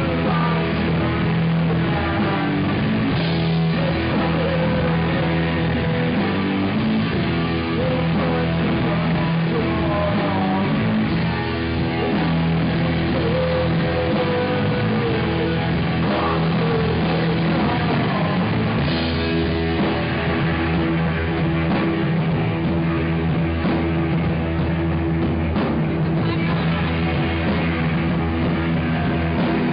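A rock band playing live, loud and steady, with guitar and drums over sustained bass notes.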